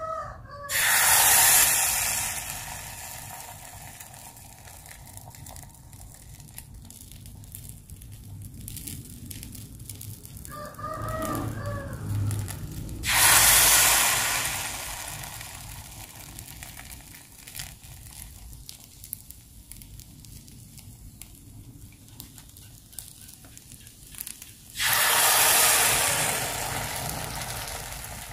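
Rice-flour and coconut-milk surabi batter sizzling as ladlefuls hit a hot seven-cup non-stick mini martabak mold: three sudden loud hisses, each fading over a few seconds, about twelve seconds apart. A rooster crows twice in the background, at the start and about eleven seconds in.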